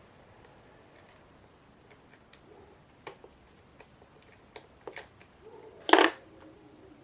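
Diamond pick and tension tool working the pins of an American Lock 1100 series padlock under light tension: scattered faint metallic ticks and scrapes, with a sharper, louder click about six seconds in.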